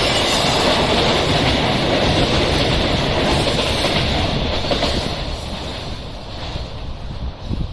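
A passing train's wheels and running gear, loud and steady, then fading away from about five seconds in as it moves off.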